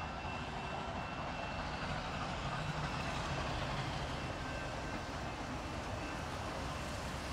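Distant approaching double-headed steam train, Victorian Railways K-class locomotives working hard: a steady rumble and exhaust noise that grows slightly louder about three seconds in.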